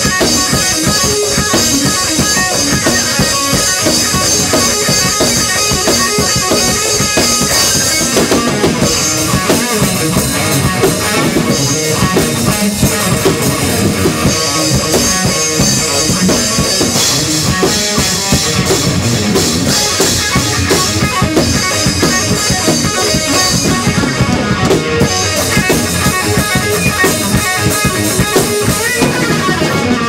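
Drum kit and electric guitar playing together live, with steady drum strokes and ringing cymbals under the guitar. The cymbal wash thins out for a moment a few times.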